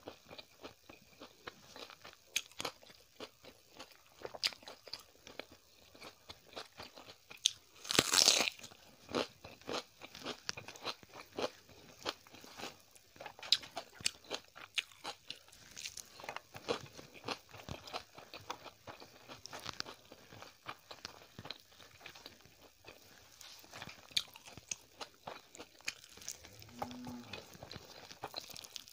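Close-miked chewing with wet mouth clicks and crunchy bites of food, including raw red onion; one much louder crunch comes about eight seconds in.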